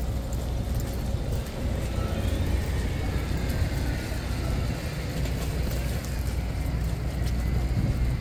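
Steady low rumble of city street noise, with faint voices of people nearby.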